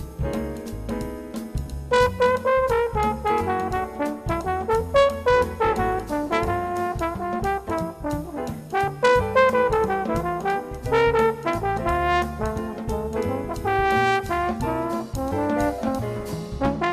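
Instrumental background music with a brass melody over a steady drum beat.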